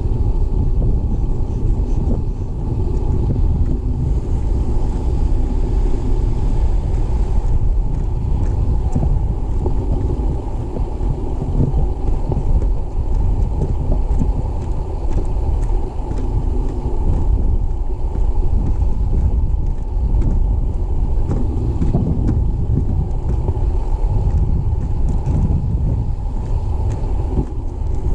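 Wind buffeting the camera microphone: a steady, fluttering low rumble.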